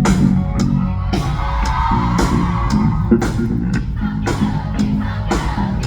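Instrumental intro of a pop song played loud: a steady drum beat at about two hits a second over a bass line and guitar, with no vocals yet.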